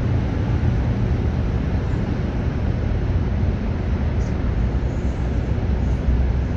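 Steady low rumble of outdoor background noise, with a few faint, brief high-pitched sounds about four to six seconds in.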